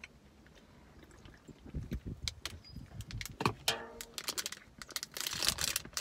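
Plastic protein-bar wrapper being handled and opened: scattered crinkles and clicks at first, turning into dense crackling about five seconds in.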